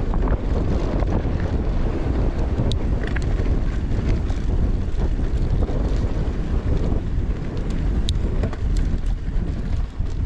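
Strong wind buffeting the microphone on a moving bike, with a few short clicks.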